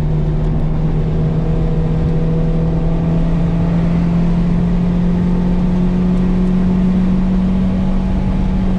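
Toyota MR2 engine under load, heard from inside the cabin at speed on a track, its revs climbing slowly and steadily, over tyre and road rumble.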